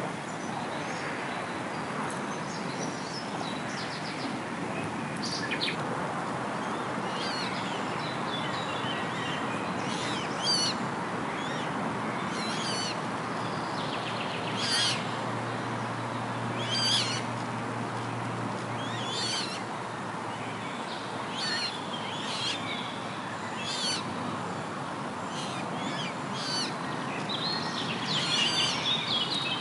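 Birdsong from several small birds: short, bright, warbling phrases every second or two, over a steady rushing background.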